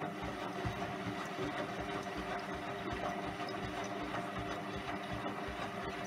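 Front-loading washing machine running a wash: a steady motor hum with water sloshing in the turning drum and irregular low thuds.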